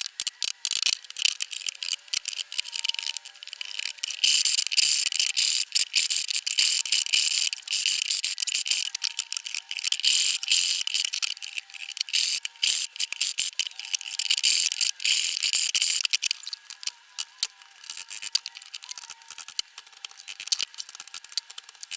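Hand-tool work on wood at the bench: a fast, irregular stream of clicks and rasping scrapes, heavier in several stretches of a few seconds.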